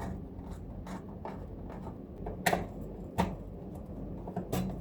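Screwdriver and hand-handling sounds inside a desktop PC case as the motherboard is unscrewed and taken out: scattered light clicks and scrapes, the sharpest two about two and a half and three seconds in, over a steady low hum.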